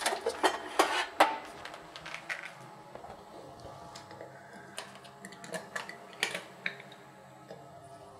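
Kitchen equipment being handled: a series of sharp knocks and clicks of metal and utensils, several in quick succession in the first second or so, then scattered single ones.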